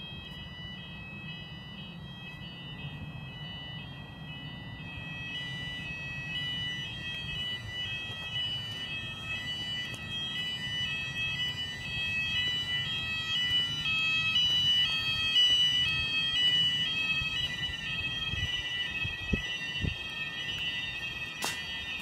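Building fire alarm sounding in its weekly test: several high electronic tones at once, alternating in a repeating pattern. It grows louder over the first dozen seconds.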